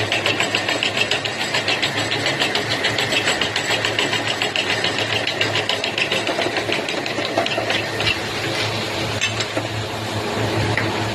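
Machinery running with a steady hum under a fast, even clatter of about five clicks a second; the clatter fades after about eight seconds while the hum goes on.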